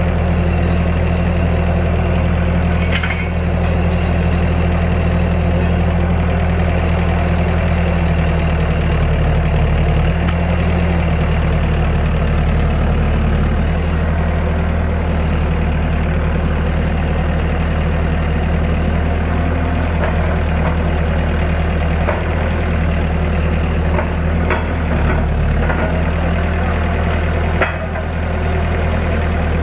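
Bobcat T770 compact track loader's diesel engine running steadily, its pitch shifting a few times, with a few short knocks.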